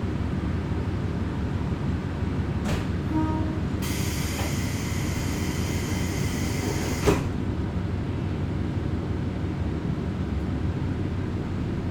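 Diesel railcar running on the line, heard from inside, with a steady low rumble. About four seconds in, a high hiss starts, lasts about three seconds and ends in a sharp knock.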